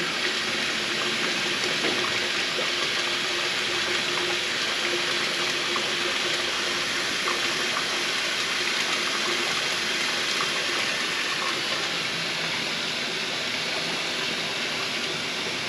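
Kitchen sink faucet running steadily, water pouring into the sink basin.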